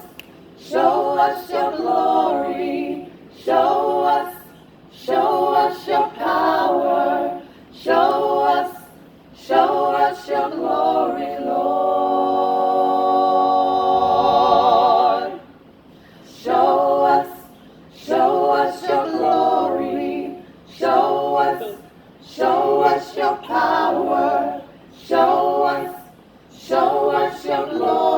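Unaccompanied voices singing a worship song together, in short phrases with breath pauses between them. About halfway through they hold one long chord with vibrato for roughly three seconds.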